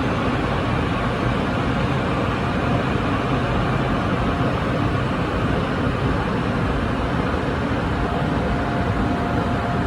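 Steady running noise of a Taiwan Railways electric multiple unit at the platform, a constant low rumble with a faint thin whine coming in near the end.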